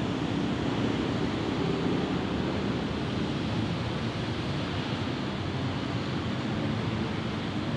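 Steady hum of distant road traffic: a continuous, even wash of noise with no distinct sounds standing out.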